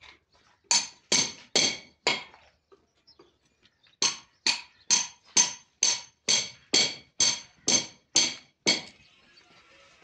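Hammer striking a galvanized steel solar-panel mounting frame: sharp, ringing metal blows at about two a second, four strikes, a pause of about two seconds, then eleven more.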